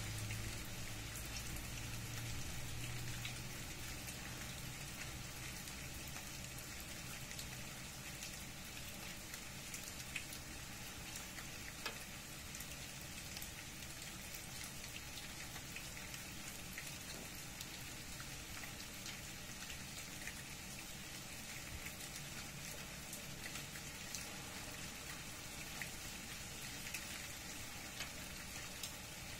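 Light rain falling steadily, a soft even hiss with scattered individual drops tapping. A faint low hum fades out over the first few seconds.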